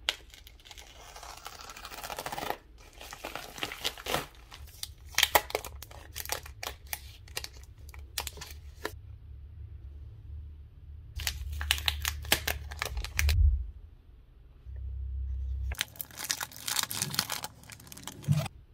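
Plastic packaging crinkling and tearing in several bursts with short pauses between: a bubble mailer being opened, then cellophane sticker sleeves and plastic sheets being handled.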